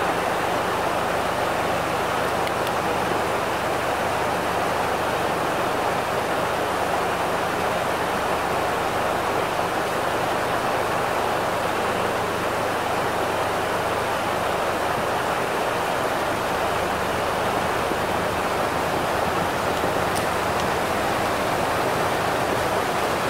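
Flash floodwater rushing and churning across a road, a steady loud rush of turbulent water.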